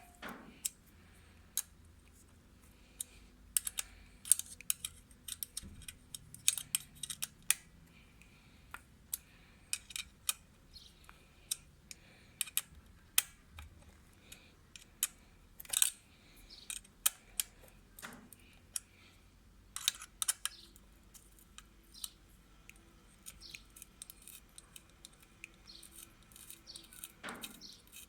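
Irregular sharp metallic clicks and taps of a wrench working on the retaining screw of a motorcycle exhaust's dB killer, loosening it to take the baffle out.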